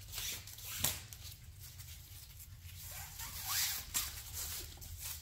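Nylon webbing strap being pulled and slid across an engine: irregular zipping, scraping rustles, with a sharp click about a second in and a louder scrape around three and a half seconds.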